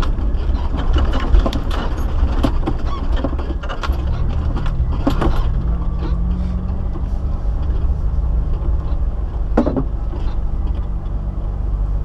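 Off-road vehicle's engine running at low speed over a rough dirt track, heard from inside the cabin, with frequent knocks and rattles from the vehicle jolting over bumps and a steadier engine note from about six seconds in.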